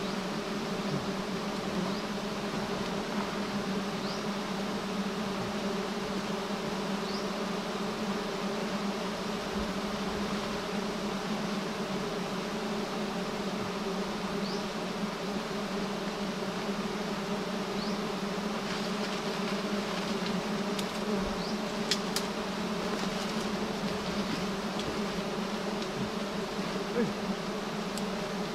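A swarm of giant honeybees buzzing around their nest, a steady unbroken drone with a few faint ticks in the second half.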